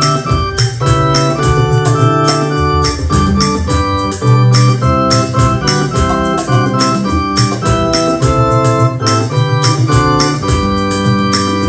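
Electronic keyboard playing a hymn tune in an organ-like voice, two-handed chords and melody, over a steady ticking beat of about four ticks a second.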